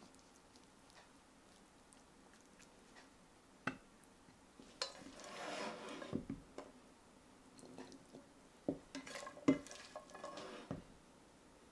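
Spatula scraping and tapping against a pan and a ceramic plate as sautéed edamame and mushrooms are served out. A single knock comes about four seconds in, then a short scraping rustle, then several soft knocks near the end.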